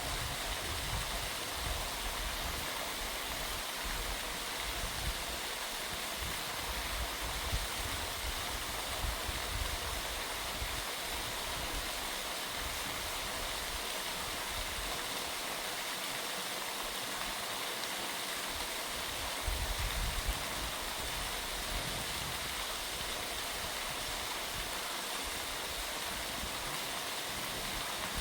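Steady rushing of waterfall water, an even hiss, with irregular low rumbles underneath.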